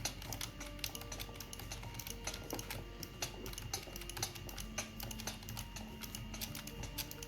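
Keyboard being typed on rapidly, a dense irregular stream of key clicks, over soft background music with sustained notes.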